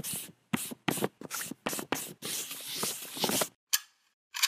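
Charcoal stick scraping across paper in a quick run of short, rough strokes ending in one longer stroke, stopping about three and a half seconds in. Two faint hisses follow near the end.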